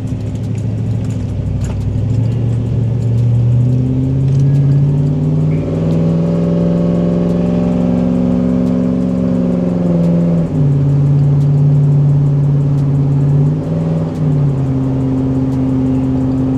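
Car engine heard from inside the cabin while driving. Its pitch rises as it accelerates a few seconds in, holds steady while cruising, drops abruptly about ten seconds in, then runs steadily again.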